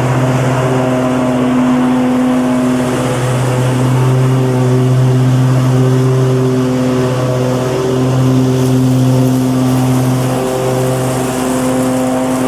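Lawn mower engine running steadily at a constant pitch, its hum swelling and easing slightly.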